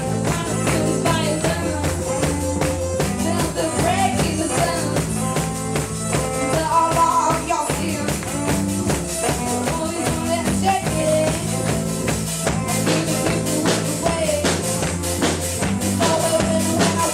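Live band playing a song, with a drum kit beating fast and evenly under bass and guitar notes.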